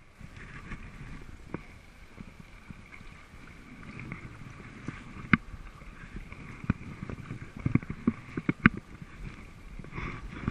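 Wooden kayak paddle strokes: the blade dipping and splashing, and water dripping and slapping against the kayak in calm water. Sharp drips and splashes come throughout, loudest about halfway through and again a few seconds later.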